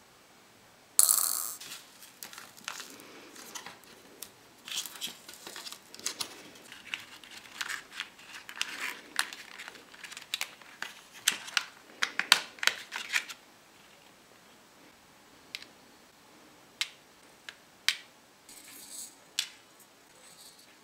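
Plastic candy-kit tray and its card packaging handled, with crinkling and a quick run of small clicks, the sharpest about a second in. Later come a few separate single clicks as small sugar-coated chocolate balls are set into the tray's hollows.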